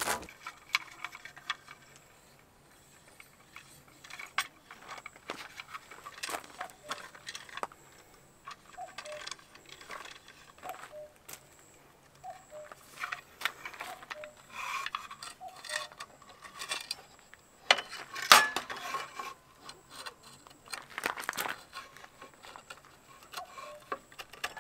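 Irregular light clicks, clinks and rattles of things being handled, with one sharp knock, the loudest sound, a little past the middle.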